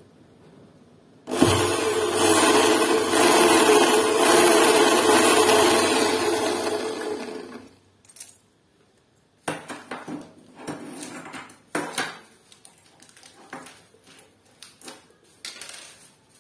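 Makita HP1630 electric drill driving a screw through the safety-latch plate into an aluminium door frame: the motor runs steadily under load for about six seconds, then winds down. A few light clicks and knocks of handling the latch follow.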